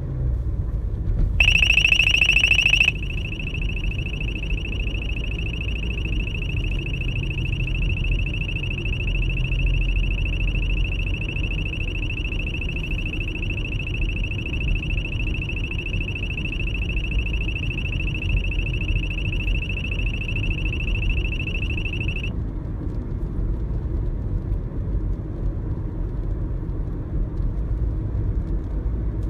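Street Storm STR-7040EX GL radar detector sounding a high-pitched alert tone, louder for its first second or so, then steady until it cuts off suddenly about 22 seconds in: the warning that it has picked up an AMATA police radar. Steady car cabin rumble runs underneath.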